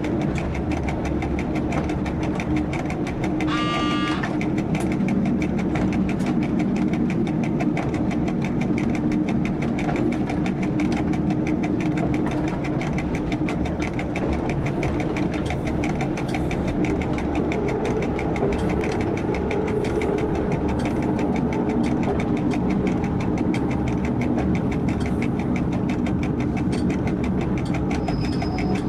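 Diesel engine of a local train, heard from the driver's cab, running steadily as the train rolls along the track. A short horn blast sounds about four seconds in.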